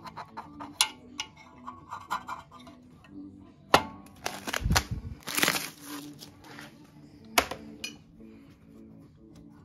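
Soft background music under handling noises of a plastic model: sharp clicks as hard plastic parts are set and pressed onto the model's body, with a loud click and then a rustle and a low thump about halfway through.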